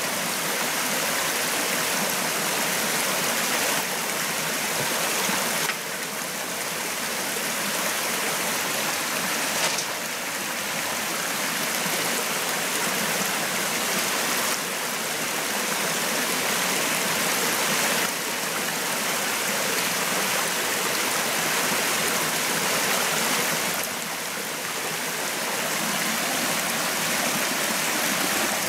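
Running water of a forest stream: a steady, even hiss with no pauses, stepping slightly up or down in level several times.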